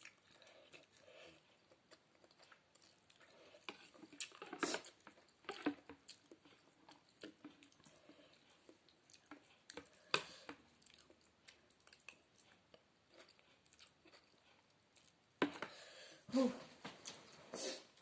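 Close-miked mouth sounds of someone chewing a mouthful of spaghetti-noodle sopas, with scattered sharp clicks and smacks and a busier stretch of eating noises near the end.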